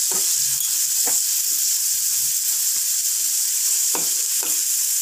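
Chopped onions sizzling in hot oil in a metal pan, with a steady high hiss, while a spoon scrapes across the pan about four times as they are stirred.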